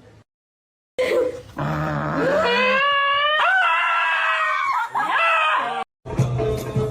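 A pet's long, drawn-out cry lasting about four seconds, rising and wavering in pitch. It is cut off suddenly near the end and replaced by music.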